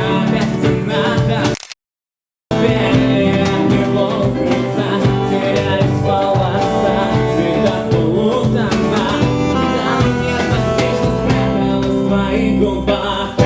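Live band music, an instrumental passage with guitar. Just under two seconds in, the sound cuts out to dead silence for about a second, then the music comes back.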